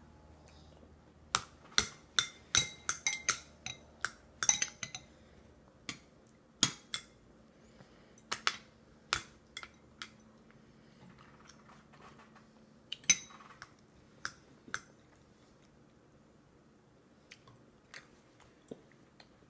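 A toddler's plastic spoon clinking and tapping against a soup bowl in quick, irregular strikes. They come thick in the first few seconds, then scattered, and only a few faint taps near the end.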